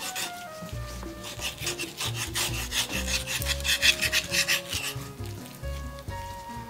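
A quick run of rasping, scraping strokes of kitchen prep work, several a second and loudest in the middle, over soft melodic background music.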